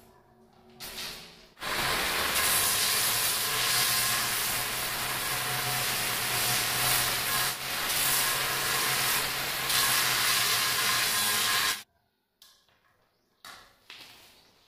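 Angle grinder with a cutting disc slicing through a granite strip: a loud, steady grinding hiss with the motor's hum under it. It starts about two seconds in and stops abruptly about ten seconds later, followed by a few faint metallic clicks as the disc is changed with a spanner.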